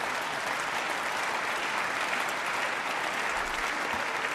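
Applause from a large seated audience of parliamentarians: many people clapping at once, holding steady throughout.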